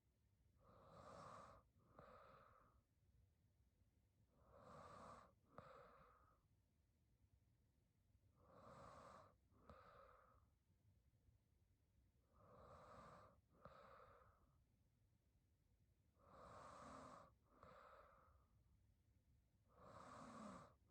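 A sleeping woman breathing slowly and faintly, about one breath every four seconds, six in all. Each breath is a longer rush of air followed by a shorter one.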